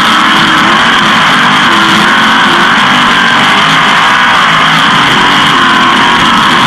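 360 sprint car's V8 engine running hard at race speed, picked up by the in-car camera as a loud, distorted, unbroken drone with a wavering pitch.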